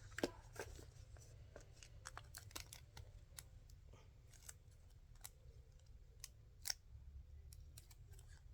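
Faint, scattered clicks and snips of hands working plastic bag film and tape at close range, irregularly spaced, over a low steady hum.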